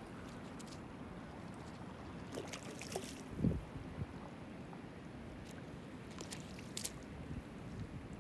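Wind rumbling on the microphone, with light water splashing and a few small clicks, and one short low thump about three and a half seconds in.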